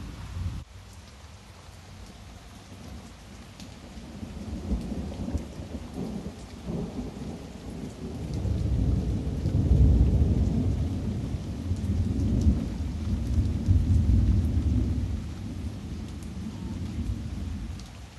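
Thunderstorm: a long roll of thunder rumbling deep and low, building over several seconds to its loudest about halfway through and then fading, over the steady hiss of rain.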